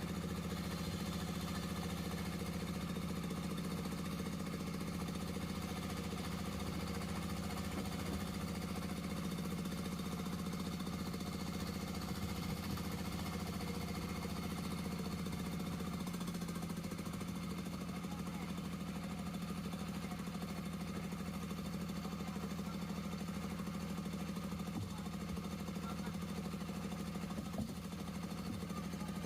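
Jiangdong 1125 24 hp single-cylinder diesel engine of a motor boat running steadily at constant speed.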